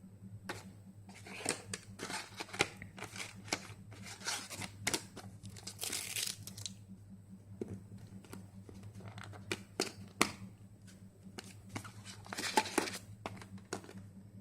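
A product's packaging being handled and opened by hand: irregular rustles, crinkles and sharp clicks, with a steady low hum underneath.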